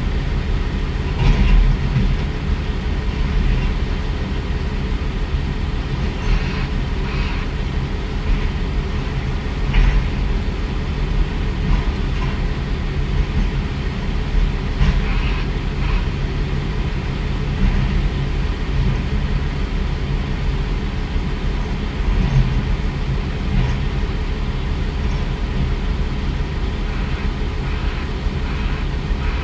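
Heavy diesel earthmoving equipment running steadily under load, a continuous low engine drone, with scattered brief knocks as rock is pushed.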